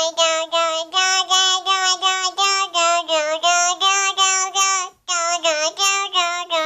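A child's voice saying 'girl, girl, girl' into cupped hands, giving a steady run of short pitched hoots, about three a second, with a brief break about five seconds in.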